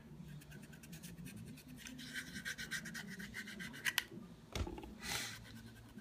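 Alcohol prep pad scrubbed quickly back and forth over the textured polymer grip of a Glock 23 frame, a scratchy rubbing that grows stronger about two seconds in. A sharp knock and a low thump come about four seconds in.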